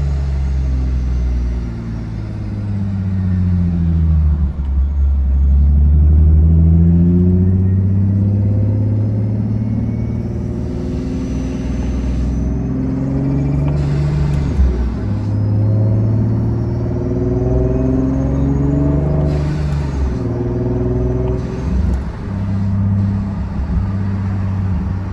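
Supercharged Nissan 370Z's 3.7-litre VQ37VHR V6, Vortech-boosted and breathing through a Motordyne Shockwave exhaust, pulling hard with the engine note climbing and dropping repeatedly through gear changes. Three brief rushes of hiss cut in around the middle and later part.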